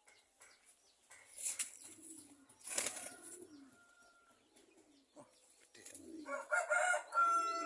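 Aseel mother hen clucking, scattered low calls that grow into a louder run of calls near the end, with a couple of brief rustles early on.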